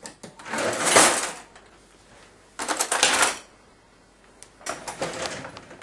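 A wooden kitchen drawer slid open and cutlery rattling in its tray as a piece is picked out, in three separate bursts of clattering.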